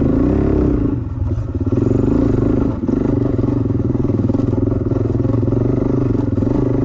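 Dirt bike engine running under throttle on a trail ride, heard close from the bike itself. The revs dip briefly twice, about a second in and again near three seconds, then pick back up.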